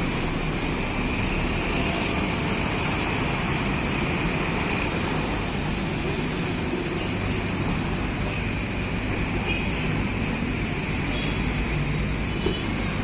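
Coach bus's diesel engine running with a steady low rumble as the bus moves slowly off.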